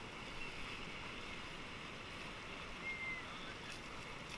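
Shallow surf water washing around a small board, a steady hiss of moving water.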